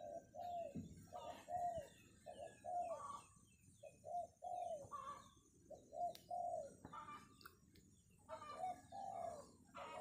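Spotted doves cooing over and over in short repeated notes, with a brief lull about two thirds of the way through. Small birds chirp faintly behind them.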